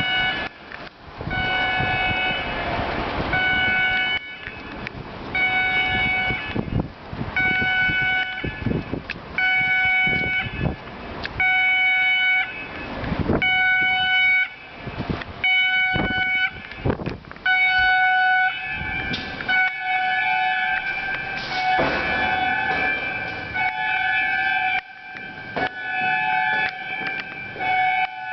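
Fire alarm sounders in a multi-storey car park giving a pulsed, many-toned electronic alarm, about one blast every second and a half. From about 19 seconds in the tone runs almost without gaps. Irregular knocks sound now and then.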